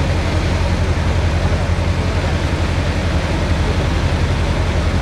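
Light aircraft's piston engine and propeller heard inside the cockpit as a steady low drone, with the engine throttled back for the landing flare.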